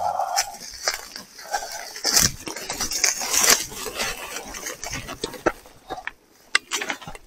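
Irregular metallic clicks and clinks from an e-bike jolting over rough ground, its parts rattling as it rides.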